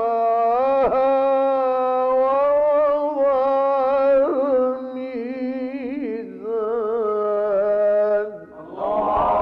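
A male Qur'an reciter's voice in the Egyptian mujawwad style, holding long melodic notes that waver and turn through quick ornaments, with short breaths between phrases, stopping about eight seconds in. Near the end several listeners' voices break in together, calling out over each other.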